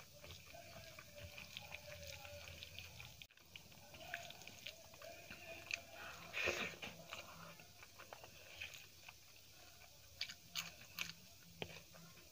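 Close-up mouth sounds of someone eating lemon rice and dal by hand: soft chewing with small wet clicks and smacks, and a louder bite about six and a half seconds in.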